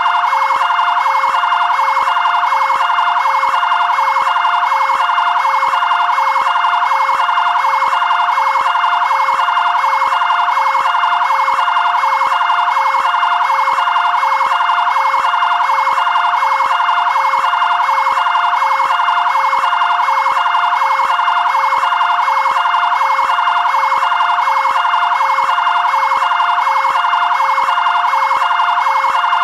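Fire-engine siren of a fire brigade area command vehicle, sounding a fast two-tone (bitonal) pattern that repeats evenly about twice a second without a break.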